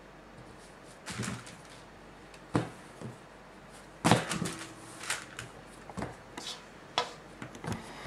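Hands patting, stretching and lifting soft bread dough on a floured pastry mat: scattered soft thumps and rustles, the loudest about four seconds in.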